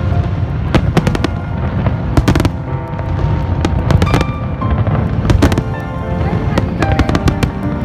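Fireworks display: clusters of sharp bangs and crackles from bursting shells, a new cluster about every one to one and a half seconds, with music playing underneath.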